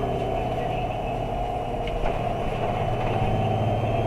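Isuzu Erga bus's 6HK1-TCC diesel engine running steadily, heard from inside the cabin with the air conditioning on. A thin, steady high-pitched whine runs over it; the uploader believes this is recorder noise rather than a sound from the bus. The low drone grows a little louder about three seconds in, and there is one short knock about two seconds in.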